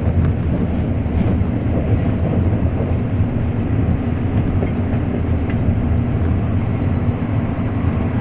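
Interior noise of an N700 series Shinkansen under way: a steady low rumble with a few faint ticks.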